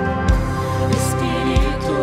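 Live worship band music: held keyboard chords over bass, with two drum thumps and a cymbal splash about a second in.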